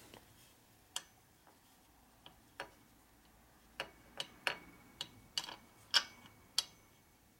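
Light, scattered metallic clicks and taps as a gear is slid onto its keyed shaft in an aluminium motorcycle engine case, with a few isolated clicks at first and a quicker run of them in the second half.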